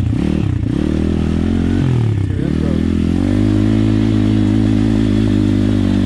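Pit bike's small single-cylinder four-stroke engine riding under throttle: the revs dip and pick up again several times in the first couple of seconds, then hold a steady higher note from about three seconds in.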